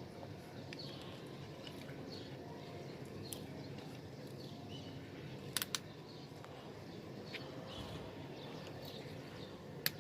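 Faint bird chirps over low outdoor background noise, with a pair of sharp clicks about halfway through and another near the end.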